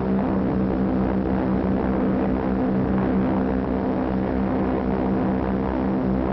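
Propeller aircraft engines droning in flight: a steady, unbroken drone that holds one pitch throughout.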